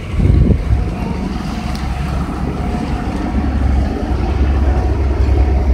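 Steady low rumble of city street traffic, vehicles passing close by.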